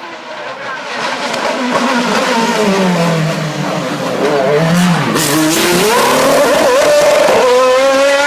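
Race car engine coming closer at speed and growing louder, its revs rising and falling through gear changes, with a dip about five seconds in, then held high near the end.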